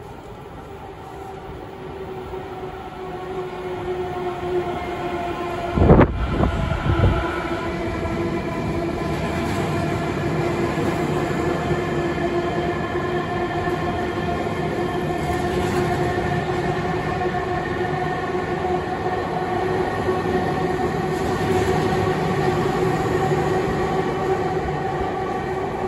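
A Tobu 50050 series electric train runs through an underground station platform without stopping. Its rumble grows as it approaches, with a sudden loud low thump about six seconds in. After that comes a steady whining drone as the cars pass.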